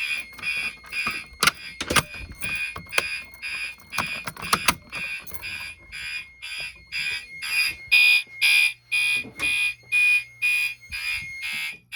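Fire alarm horns sounding in alarm, an even fast pulse of about two and a half blasts a second, set off by a manual pull station on the fire alarm panel. A few sharp knocks come through between about one and a half and five seconds in.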